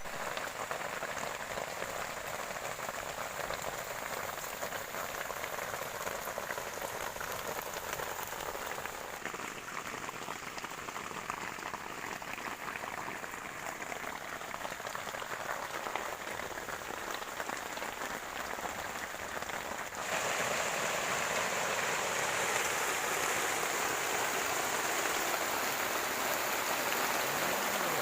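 Rain falling steadily, a dense even hiss of drops, which steps up suddenly louder about two-thirds of the way through.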